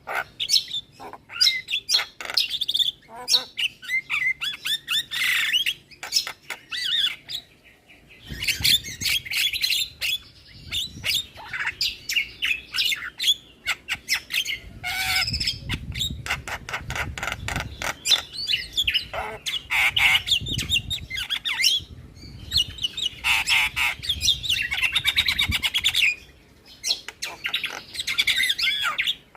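Javan mynas calling without a break: harsh squawks, rapid clicking chatter and whistled notes in quick runs, with short pauses between the runs.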